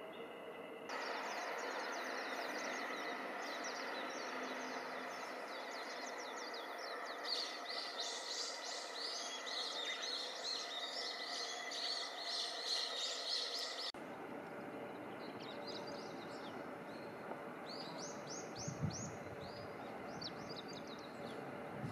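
Small birds chirping in quick repeated runs over a steady background hum. The background changes abruptly about a second in and again around fourteen seconds in.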